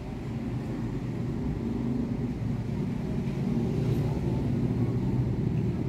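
A low, steady rumble that grows slightly louder over the few seconds.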